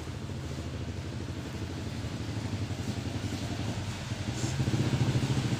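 A motor running steadily with a low hum and a fast, even flutter, getting louder about four and a half seconds in.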